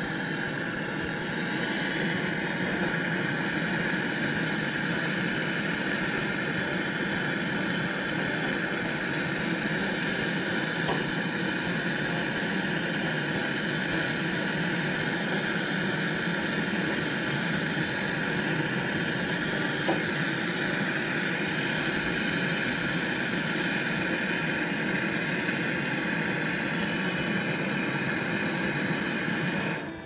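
Steady hissing rush of a handheld canister gas torch's flame, brazing a copper refrigerant pipe joint on a refrigerator compressor until it glows red.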